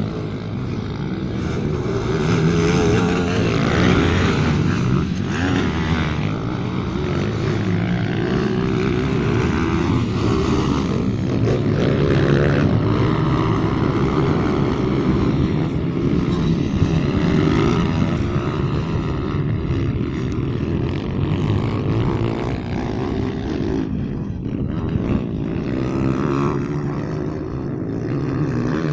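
Several pit bikes racing around a dirt motocross track, their small engines running hard and revving.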